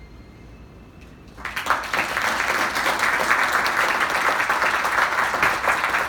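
An audience breaks into applause about a second and a half in and keeps clapping steadily. Before it there is a quiet stretch with a few faint steady tones.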